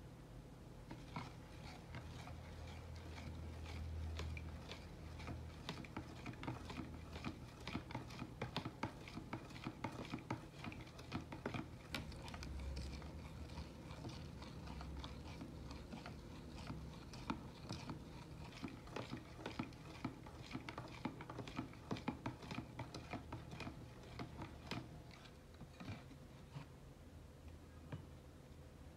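Spoon stirring a coffee-and-milk mixture in a plastic measuring jug, clicking and scraping against the sides several times a second; the clicking stops near the end.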